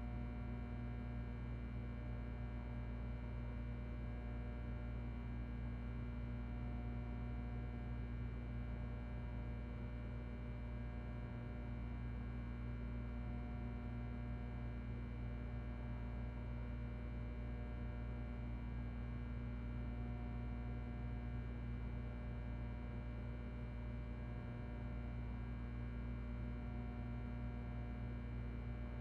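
Ventilation fan running steadily with a low electrical hum and several steady tones above it. A faint higher tone fades in and out about every six or seven seconds.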